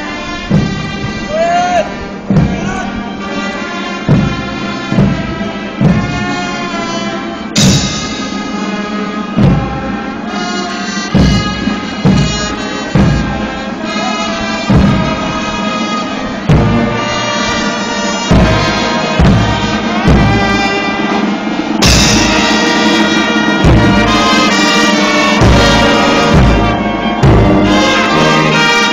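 Brass band playing a march, with a drum beating steadily under the horns. The band gets louder in the last several seconds.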